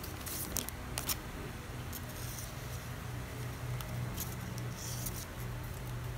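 Plastic packaging crinkling and rustling in several short bursts as a face mask and its clear plastic pouch are handled, over a steady low hum.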